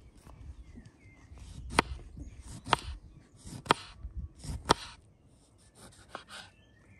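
Kitchen knife cutting slices off a lemon on a wooden tabletop: four sharp knocks of the blade on the wood, about a second apart. Fainter cuts follow near the end as a bell pepper is sliced.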